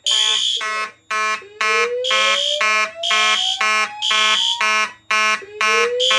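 Fire alarm in full alarm. A Simplex 2901-9838 mechanical horn blasts in march time, about two blasts a second, over the higher, slower pulses of a System Sensor P2W electronic horn. A slow-whoop evacuation tone from the Notifier DVC voice system rises in pitch twice, starting about a second in and again near the end.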